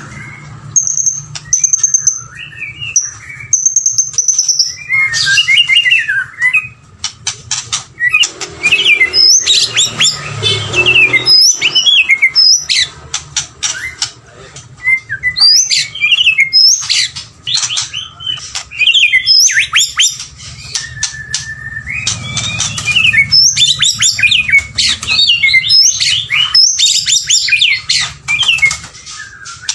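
White-rumped shama singing: a varied string of loud whistled phrases, quick sweeping notes and rapid chattering runs, broken by short pauses, over a steady low hum.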